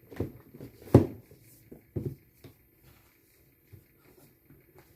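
Hands handling a cardboard product box and its packaging: a series of light knocks and rustles, the loudest knock about a second in.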